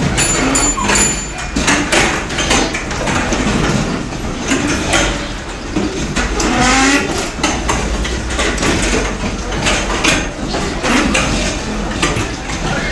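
School desks and plastic-shell chairs with metal legs being dragged, scraped and knocked across a tiled classroom floor, many at once. There is a constant clatter of knocks with drawn-out scrapes and squeals.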